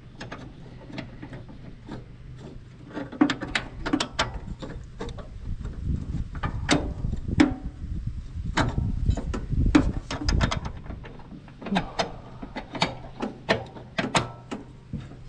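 Irregular metal clicks and clanks of hand work on a lawn mower's drive belt and pulleys, parts and tools knocking together, with a few heavier knocks about halfway through.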